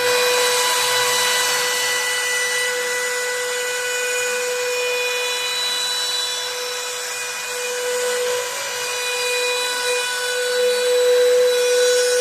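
CNC router spindle running at speed with a steady high whine, over the hiss of the bit cutting.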